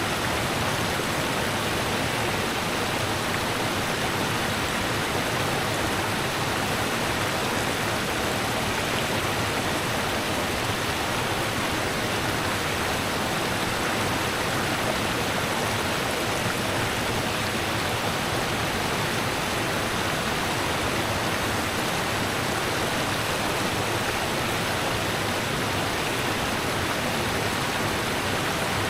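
Rushing river water, a steady even rush with no changes.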